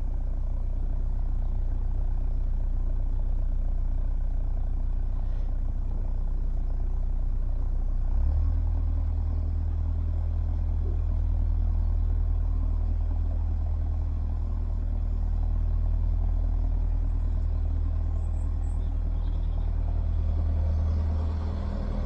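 A narrowboat's inboard engine running steadily while under way, a low, even hum that gets louder about eight seconds in as the throttle is opened.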